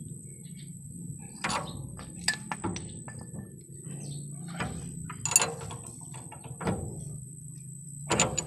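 Steel wrenches clinking and knocking against a tie-rod end and its nut as it is turned by hand, several short sharp metal clicks a second or so apart, over a steady low hum.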